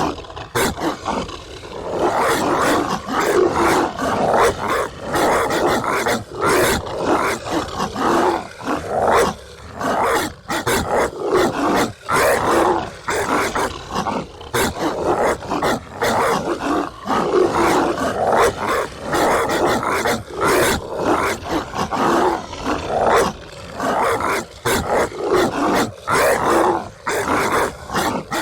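Golden retrievers barking loudly, the barks coming close together with hardly a pause.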